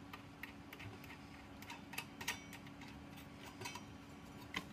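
Faint, small metal clicks, a few a second and uneven, as the arbor nut is turned by hand onto a circular saw's spindle.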